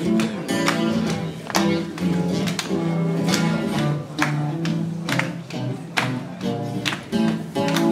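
Guitar playing an instrumental intro, picked and strummed notes in a steady rhythm with no singing yet.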